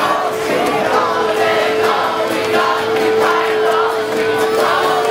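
A marching crowd's voices raised together in a sung chant, with one long steady note held beneath them.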